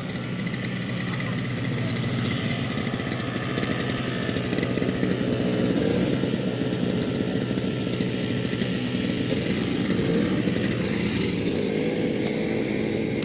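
Small engine running steadily, getting a little louder in the middle.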